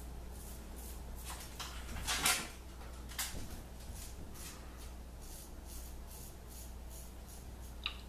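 Red Imp Wedge 132 straight razor scraping through lathered stubble on the cheek in short strokes, about three a second, with one louder, longer scrape a little after two seconds and a small click near the end. The blade is one the owner feels needs a touch-up and may have a rolled edge.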